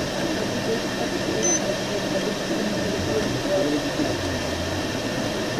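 Steady road and engine noise inside a moving vehicle's cabin, with a brief high beep about a second and a half in.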